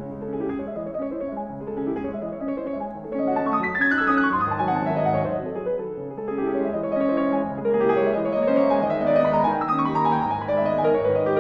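Background piano music, a melody of sustained notes with a run of falling notes about three and a half seconds in and another near ten seconds.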